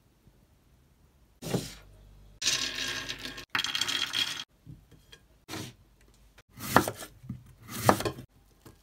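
Shelled nuts (crushed walnuts, almonds) poured by hand onto a hard plate, a dense rattling clatter for about two seconds. Then a knife cuts through an apple on a wooden cutting board, with two sharp knocks near the end as the blade meets the board.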